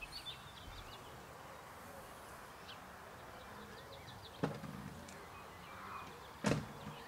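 Faint outdoor garden ambience with small bird chirps, broken by two sharp knocks about four and a half and six and a half seconds in.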